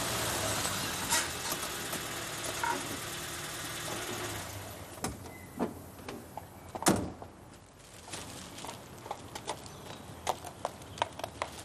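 A small Suzuki SJ-series soft-top 4x4 pulls up with its engine running steadily, the sound dying away about four to five seconds in. A car door thumps shut about seven seconds in, followed by light footsteps and the rustle of plastic shopping bags.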